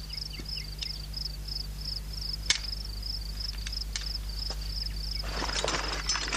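Cricket chirping in an even high pulse of about four chirps a second, over a low steady hum. There is a single sharp click about two and a half seconds in, and a burst of scuffing and clatter near the end.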